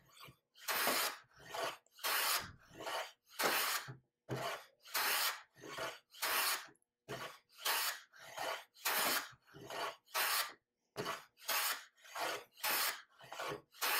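Stanley hand plane cutting a bevel along the edge of a clamped wooden board: a quick, regular run of short rasping strokes, more than one a second, with a brief gap after each stroke.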